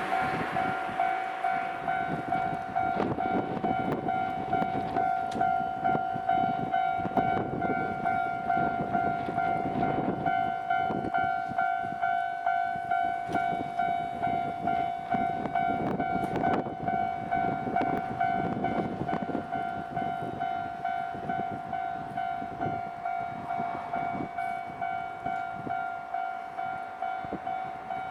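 Japanese railway level-crossing warning bell ringing its fast, steady, repeating electronic clang while a Nankai electric train passes over the crossing. The train's wheels rumble and clatter over the rail joints, heaviest in the first two-thirds and fading toward the end, with the bell ringing on throughout.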